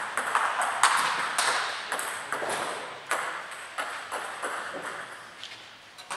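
Table tennis balls clicking off bats and table tops at irregular intervals, several tables' play overlapping in a large sports hall. The clicks thin out and fade toward the end.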